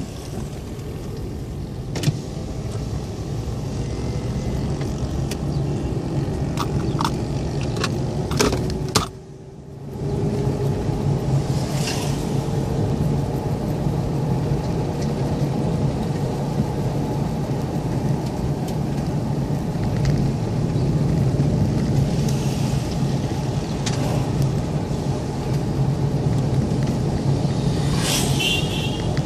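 Car running along a wet road, heard from inside the cabin: a steady engine hum and tyre noise, with a faint tone that slowly rises in pitch. A few sharp clicks come near the start and around eight seconds in, and the sound drops out almost completely for about a second just after.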